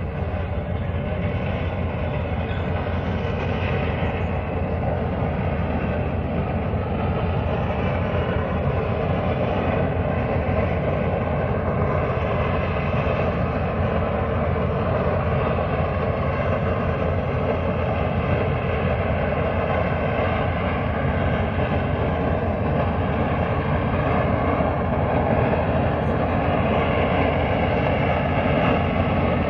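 Steady, unbroken low roar and rumble of an offshore oil platform's exhaust venting a large white plume, heard across open water.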